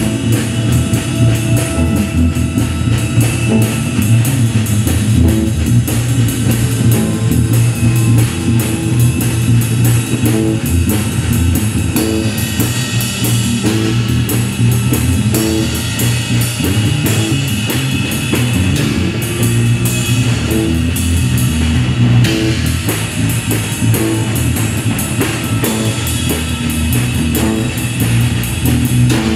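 Live improvised trio music: a six-string electric bass holding a heavy low line, a drum kit played busily with steady cymbal work, and an electric guitar through a Fender DeVille amp, all playing together at a steady loud level.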